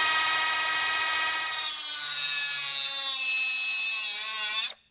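Small high-speed grinder whining at full speed, then biting into the steel steering knuckle about a second and a half in, adding a harsh grinding hiss. Its pitch sags a little under the load as it notches the metal, and it cuts off suddenly near the end.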